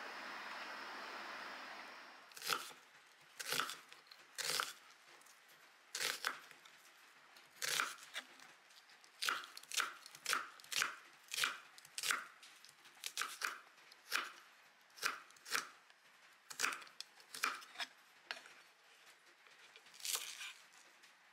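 A steady hiss of rain for the first two seconds gives way to a kitchen knife slicing onion on a wooden cutting board. About twenty sharp cuts come at uneven spacing, roughly one a second, with a short pause near the end.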